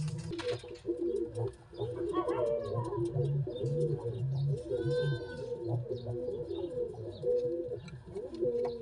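Domestic pigeons cooing continuously, the low wavering coos overlapping one another, with a brief higher-pitched call about five seconds in.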